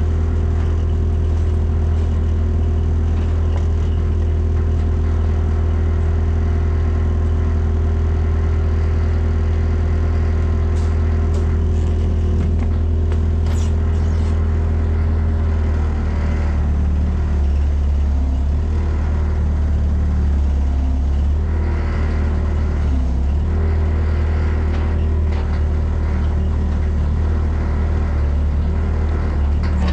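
Mini excavator's diesel engine running steadily, its note shifting for a few seconds midway as it works under load, with a few light knocks of metal.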